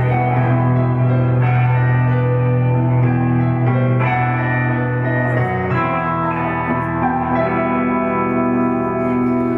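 Amplified electric guitar, a Telecaster-style solid body, playing long ringing chords that change every second or two.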